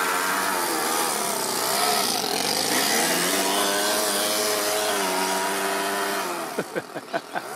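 Toyan FS-S100 four-stroke single-cylinder overhead-cam engine running hard in an RC car, its pitch rising and falling with the throttle. Near the end it gives several quick throttle blips.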